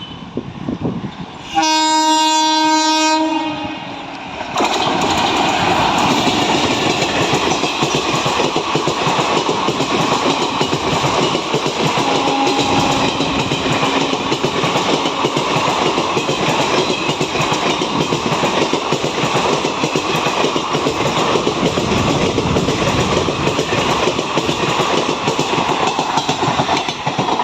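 An Indian Railways WAP-4 electric locomotive sounds its horn for about two seconds, then an express train passes at speed, its coach wheels clattering over the rail joints in a steady clickety-clack.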